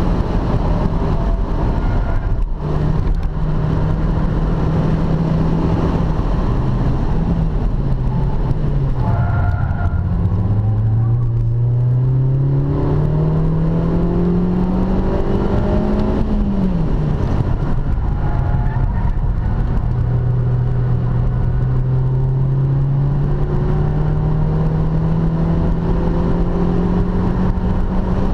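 Inside the cabin, the stock Suzuki Swift Sport's 1.6-litre four-cylinder engine is driven hard around a circuit, with steady road and wind noise. Its pitch falls about nine seconds in, climbs steadily under acceleration until about sixteen seconds in, drops sharply off the throttle, then climbs slowly again.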